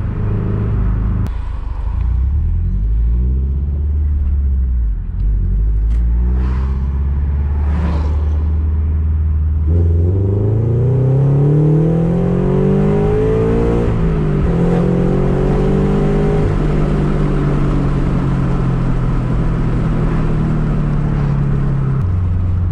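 Subaru BRZ's 2.0-litre flat-four engine heard from inside the cabin while driving on a freshly flashed Open Flash Tablet tune. It runs with a low steady note, then revs up under acceleration about ten seconds in, dips briefly at a gear change and holds a steady higher note, dropping in pitch near the end.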